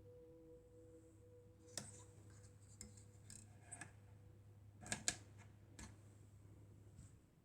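A ringing tone dying away over a faint steady hum, then scattered light clicks and taps, the loudest a quick double click about five seconds in.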